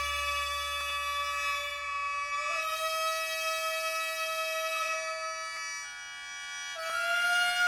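Kibigaku, traditional Japanese court-style music: a reedy wind instrument holds long, sustained notes. It steps and slides upward in pitch a few times.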